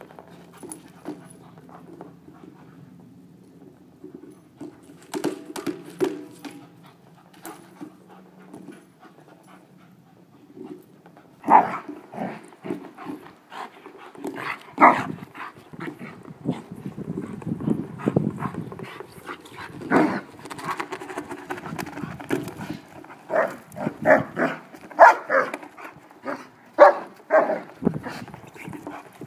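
A German shepherd playing with a large hard plastic Boomer Ball, panting while it noses and paws the ball across the ground. Irregular knocks and thuds of the ball being bumped come thick and loud through the second half.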